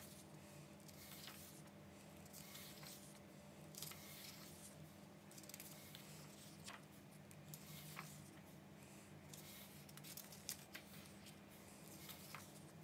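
Faint swishes and soft ticks of paper pages being turned one after another in a large book, several turns at irregular intervals, over a low steady hum.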